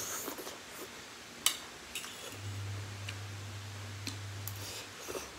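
Someone eating instant noodles: a metal fork clinks against the bowl several times, the sharpest click about a second and a half in, with short slurps of noodles near the start and again near the end. A low steady hum runs underneath through the middle.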